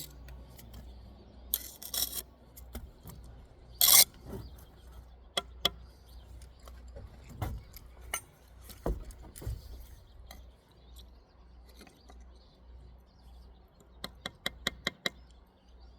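Steel trowel scraping mortar across brick and tapping, with scattered clicks and short scrapes, a loud scrape about four seconds in, and a quick run of taps near the end.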